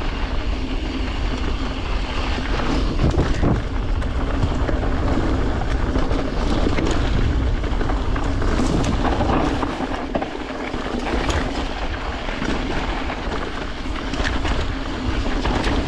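A high-pressure washer jet spraying a mountain bike: a loud, steady rushing hiss of water with a low rumble underneath.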